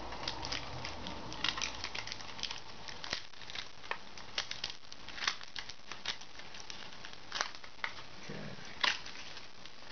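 Copper foil shielding being peeled up by hand from a plastic drone shell, giving irregular crinkles and crackles.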